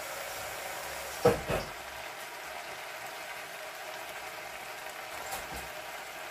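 Steady bubbling hiss of a pot of chicken stew simmering on the stove, with two loud knocks in quick succession a little over a second in.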